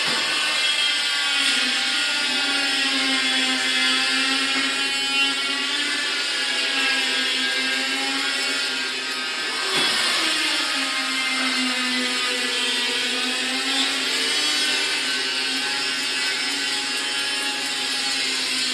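Automatic chain link fence machine running: its electric motor and drive give a steady whine with several tones, the pitch drifting slowly up and down and dipping briefly about ten seconds in.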